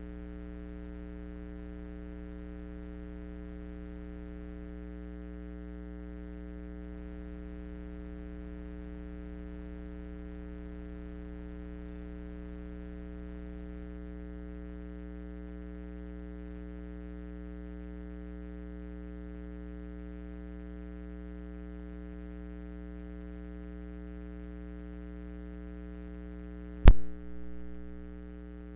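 Steady electrical hum: one low tone with a ladder of evenly spaced overtones that does not change. Near the end it is broken by a single sharp click.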